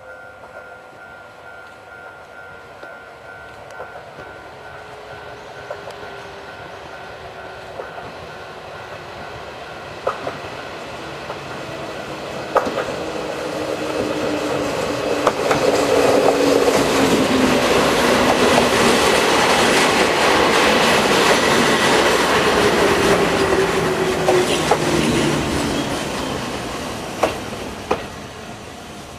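Nagano Electric Railway 2000 series electric train approaching and running in, growing loud as it passes close. Its motor whine falls slowly in pitch as it slows, and its wheels clack sharply over rail joints a few times. A faint pulsing bell-like tone repeats through the first ten seconds or so.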